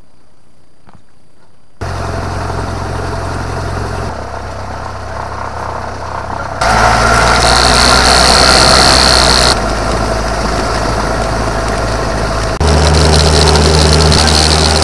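Cessna 172 Skyhawk's piston engine and propeller running, heard from inside the cabin, starting about two seconds in. It jumps abruptly in loudness and pitch several times, with the loudest stretches from about seven seconds in and again near the end.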